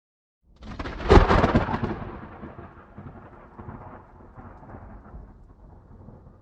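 A thunderclap: a sudden sharp crack about a second in, then a long rolling rumble that slowly dies away.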